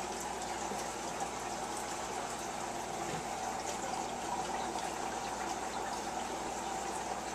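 Steady trickling, gushing water circulating in a turtle tank.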